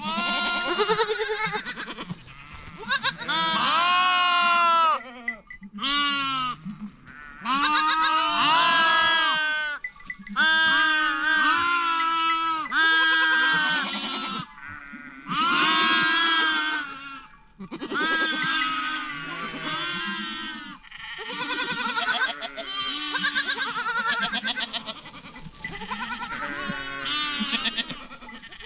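A flock of goats and sheep bleating, many loud quavering calls overlapping with only short breaks.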